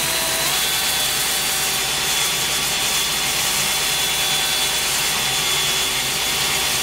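Cordless drill spinning a 220-grit foam-backed sanding disc against a wooden spindle turning on the lathe: a steady motor whine over the rasp of sandpaper on wood, the whine stepping up slightly about half a second in. The shop dust collector rushes underneath.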